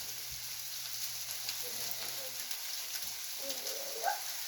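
Ground beef and rice filling in tomato sauce sizzling steadily on a steel flat-top griddle.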